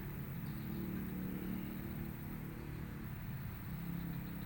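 Steady low hum of a running engine, its pitch wavering slightly.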